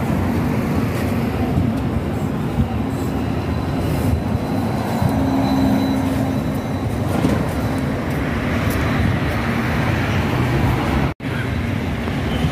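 A bus running, a steady rumble of motor and road noise that cuts out for an instant near the end.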